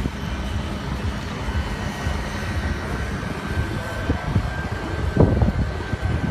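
Steady low rumble of running engines with a faint steady whine over it, and a few louder low bursts about five seconds in.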